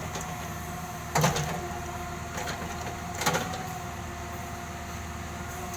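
An engine running steadily with a thin, even whine over its hum, and two short knocks about two seconds apart.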